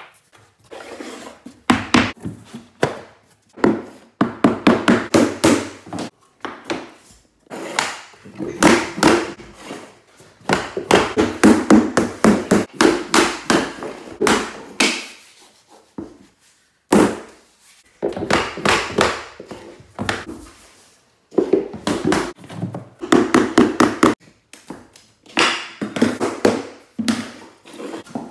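Rubber mallet striking a wooden tapping block to knock locking floor planks together at their joints: runs of quick, sharp taps and thunks, several strikes at a time, with short pauses between.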